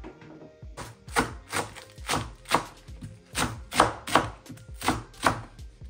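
Chef's knife chopping spring onions on a wooden cutting board: a steady run of crisp knocks, about two to three a second, starting about a second in.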